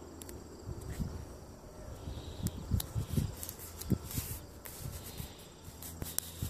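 Irregular low thumps and rumbling of wind and handling noise on a phone microphone, with a few sharp clicks, loudest near the middle.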